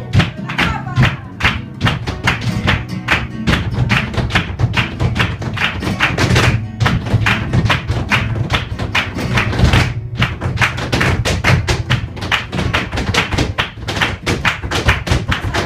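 Flamenco music with guitar, overlaid by rapid, sharp percussive strikes several times a second, the footwork (zapateado) of flamenco dancers' shoes on the floor.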